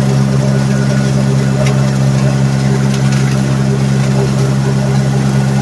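Gator utility vehicle's engine running steadily, loud and close, an even drone with no revving.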